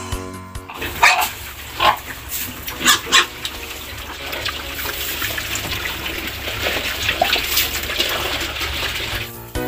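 Fattening pigs eating feed at a trough: steady chewing and snuffling, with a few short, loud squeals in the first three seconds.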